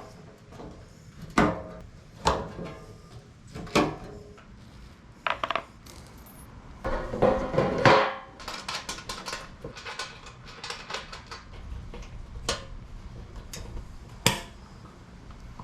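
Metal tools and parts clinking and knocking during the fitting of a cold air intake: a string of separate sharp knocks, with a run of quick ticks about halfway through.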